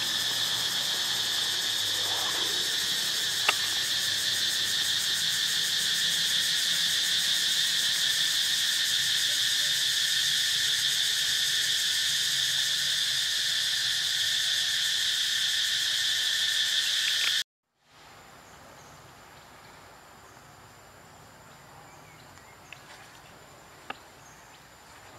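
Loud, steady chorus of forest insects buzzing in several high pitches. It cuts off abruptly about seventeen seconds in, leaving a much quieter background with a single thin, high insect tone and a few faint clicks.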